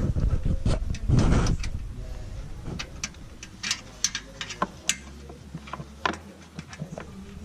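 Irregular clicks and small knocks of hand tools and parts being handled, with a louder rustling burst about a second in.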